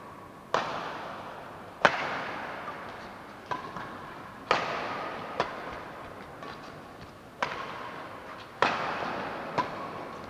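Badminton rally: rackets striking a shuttlecock about eight times, sharp cracks roughly a second apart, some harder than others, each ringing on in the echo of a large hall.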